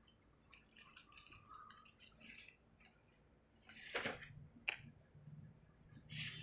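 Paper rustling as the pages of a spiral-bound file are turned by hand, with a louder rustle about four seconds in followed by a short sharp click.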